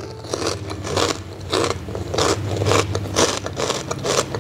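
Crunchy fried pork-skin crackling (chicharron) being chewed with the mouth closed: a steady run of crisp crunches, about two a second.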